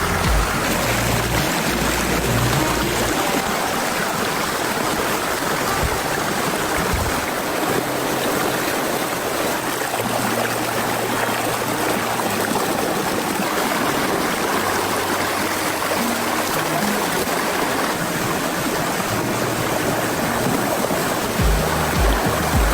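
A steady rush of flowing water under background music with low, held bass notes that pulse in a beat near the start and the end.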